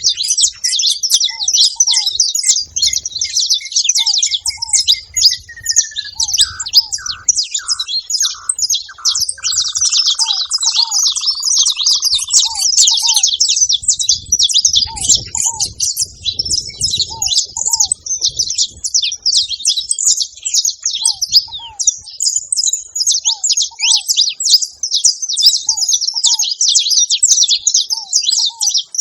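A flock of saffron finches chattering together at a feeder: a dense, unbroken high-pitched twittering of many overlapping chirps. Beneath it a lower short two-note call repeats every second or two.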